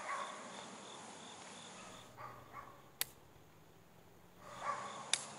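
Sharp dry click of the Excel Arms Accelerator 17 HMR pistol's hammer falling without a shot, about three seconds in, and another click near the end. It is a rimfire misfire, which the shooter puts down to the hammer not striking the rim hard enough. Insects chirp faintly behind.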